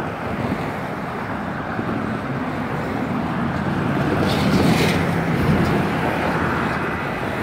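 Road traffic passing a level crossing. It is loudest as a semi-truck tractor-trailer goes by about four seconds in, with a short hiss at that moment.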